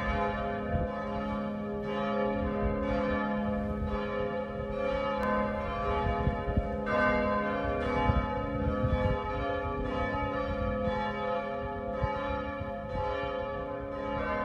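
Several church bells ringing together, struck again and again about twice a second, their tones overlapping and ringing on.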